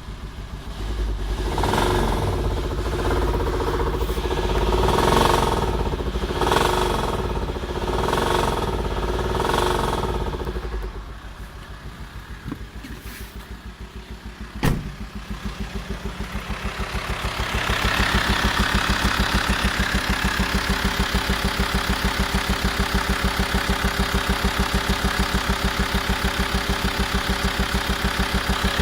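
VW Transporter T5 2.5 TDI five-cylinder diesel engine running, swelling and falling in repeated waves for the first ten seconds. It drops quieter with one sharp click about halfway, then settles into a louder, steady, fast pulsing from about two-thirds in. The owner calls it a strange engine noise of unknown cause.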